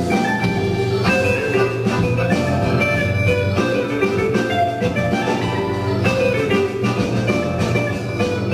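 Live rock band playing, with electric guitars and keyboard over a drum kit keeping a steady beat.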